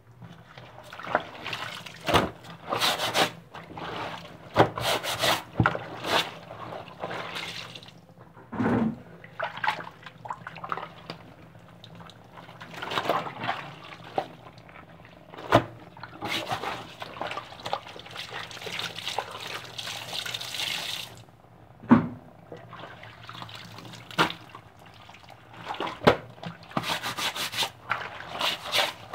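Water splashing and sloshing in irregular bursts as laundry is washed, with a few sharp knocks. A steadier rush of water runs for a few seconds about two-thirds of the way through.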